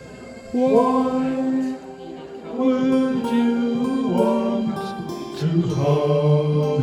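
Slow song with long held notes, sung by voices, in three drawn-out phrases.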